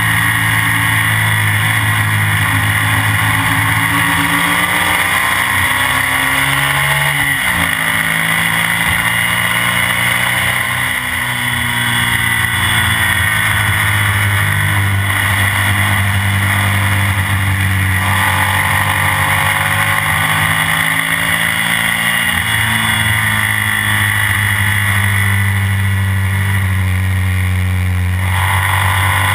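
Onboard sound of a classic BMW racing sidecar outfit's engine pulling hard at high revs, its pitch rising and falling through the gears, with a sharp drop and climb about seven seconds in. Wind and road noise run under it.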